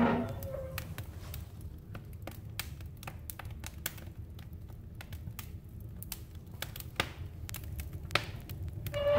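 Wood logs crackling and popping as they burn in an open wood stove, with many sharp irregular cracks over a steady low rumble of the fire. The stove's metal door is swung open at the start, the loudest moment.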